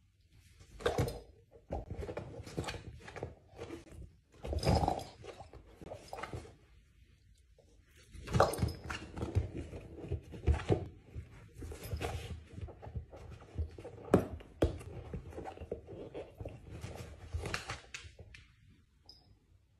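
A dachshund puppy playing with a rubber ball and a person's hand on a fabric floor cushion: irregular thumps and rustling, in bursts with short quiet gaps.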